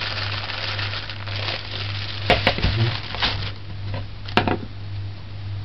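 Thin plastic bag crinkling and rustling as brown sugar is poured and shaken out of it, the rustling dying away after about three and a half seconds. A few sharp clicks come about two seconds in and again near four and a half seconds.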